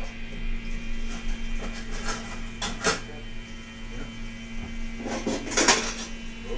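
A steady low hum with scattered mechanical clicks and rattles, the loudest cluster about five and a half seconds in.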